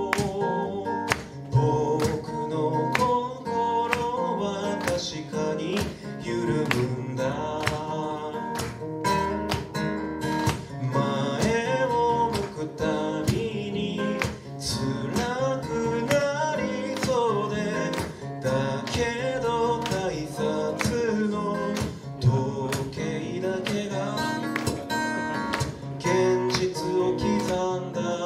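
A man singing live while strumming an acoustic guitar in a steady rhythm.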